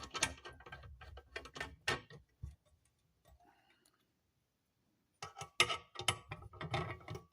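Metal fittings of a corner glass shelf clicking and rattling as they are handled and fitted together, in two spells of quick clicks with a short quiet gap in the middle.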